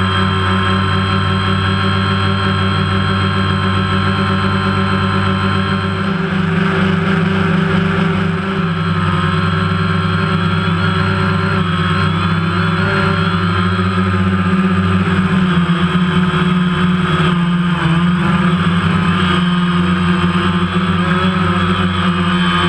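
DJI Phantom quadcopter's motors and propellers running with a steady, loud buzz, recorded by the GoPro on the drone itself; the pitch wavers slightly in the second half as the drone manoeuvres.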